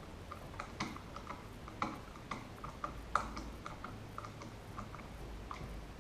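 Light, irregular clicks and ticks of a screwdriver and metal parts as the stock screw is driven back into a Marlin 1894 lever-action rifle, with a few sharper clicks about two and three seconds in.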